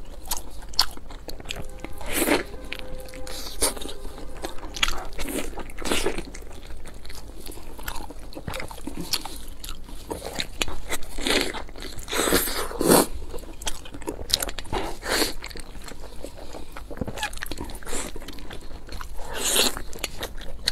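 Close-miked crunching and chewing as bites are taken from a large deep-fried dumpling with a crisp, crumbly crust. The crunches come irregularly, about once a second.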